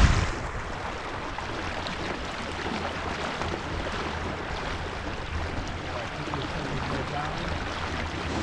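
Steady rush of water along a Melges 15 sailing dinghy's hull under sail, with low wind rumble on the microphone.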